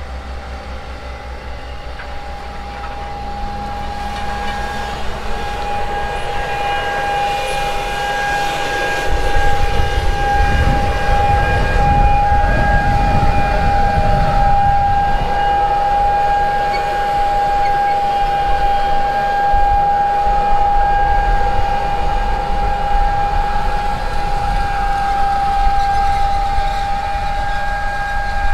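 Fendt 1050 tractor's diesel engine pulling a John Deere N530C air seeder: a low rumble under a steady high whine. The rumble grows louder about nine seconds in as the rig passes close.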